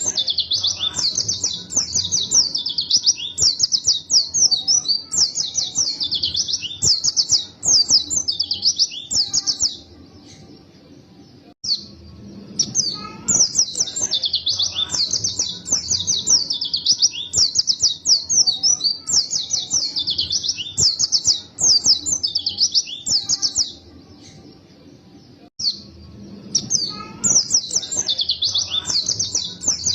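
A white-eye (pleci) singing long, rapid bursts of high chirping and twittering, in three bouts broken by two short pauses.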